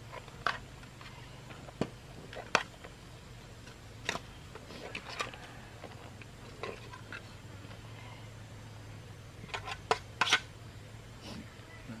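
Scattered sharp clinks and knocks of utensils against a cooking pan over a steady low hum, with a quick cluster of knocks about ten seconds in.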